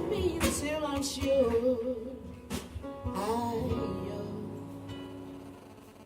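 A live gospel-jazz band playing, with wordless vocal runs over sustained chords; the music dies away toward the end.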